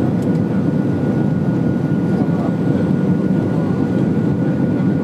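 Steady roar of airflow and jet engines inside the cabin of an Airbus A320 in descent, with a faint steady whine over it.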